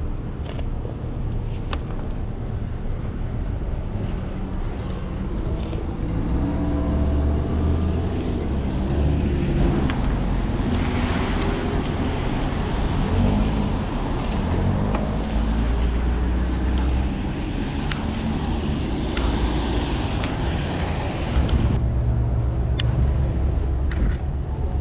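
Street traffic: car engines running and passing, their pitch rising and falling through the middle stretch over a steady low rumble, with a few sharp ticks.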